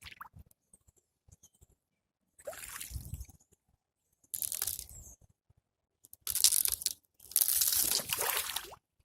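Ice on frozen flood water crunching and breaking in four separate bursts, with water sloshing as it gives way; the last two bursts are the loudest.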